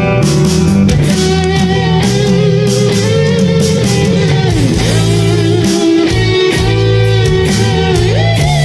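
Instrumental break of a rock song: a lead guitar plays a sustained melody with bent, sliding notes over bass and a drum kit.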